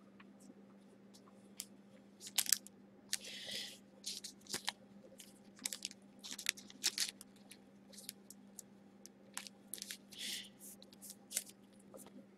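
Trading cards and plastic card holders being handled: quiet scattered crinkles, clicks and taps, with two short sliding scrapes, over a faint steady hum.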